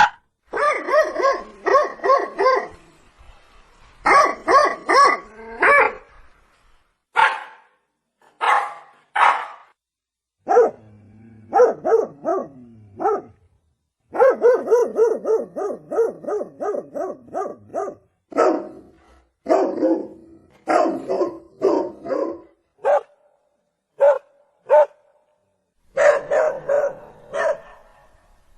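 Dog barking repeatedly in short bursts, with a fast, unbroken run of barks about halfway through.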